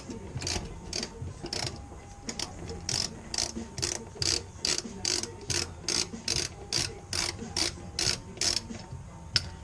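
Ratchet wrench clicking in a steady rhythm, about two to three clicks a second, as the bolts holding the fuel pump carriage are undone.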